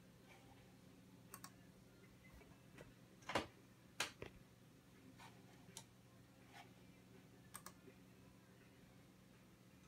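Computer mouse clicks, about ten spread unevenly over several seconds, the two loudest a little past three and four seconds in, over a faint steady hum.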